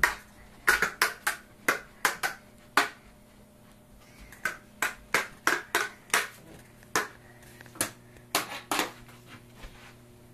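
Toy swords clacking together in a play sword fight: a string of sharp, uneven clacks, some in quick runs, with a short lull about a third of the way through.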